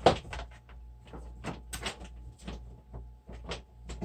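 Objects handled on a workbench: one sharp knock just after the start, then a scatter of small clicks and clatters.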